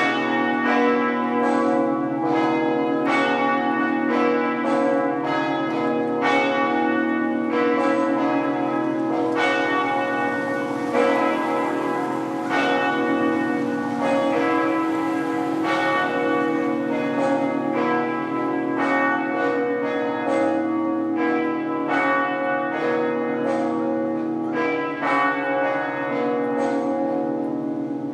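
The bells of the Notre-Dame de Québec cathedral ringing together for mass, half-muffled, the muffling used as a sign of mourning. Strikes follow one another several times a second and overlap in a steady, continuous peal.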